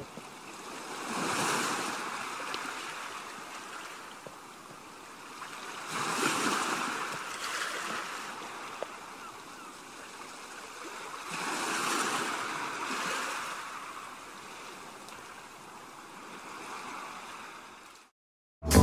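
Harbour water washing in soft, slow surges, swelling about every five to six seconds over a low steady hiss.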